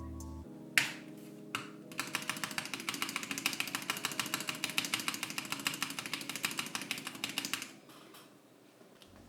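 Fast typing on an Akko MOD007s V2 aluminium, gasket-mounted mechanical keyboard. A couple of single keystrokes are followed, about two seconds in, by a rapid, even run of keystroke clacks lasting about six seconds, which then stops. Soft background music plays underneath.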